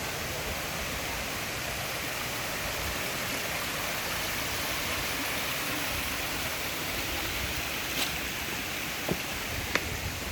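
Steady rush of water falling over the Kuang Si waterfall cascades, with a few brief sharp clicks near the end.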